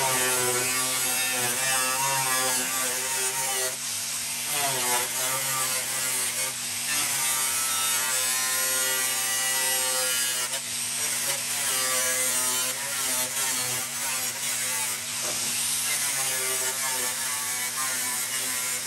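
Power tool cutting through the rotted sheet-steel bottom of an old truck door, a continuous hissing cut with a motor whine whose pitch dips and recovers several times as the tool loads up.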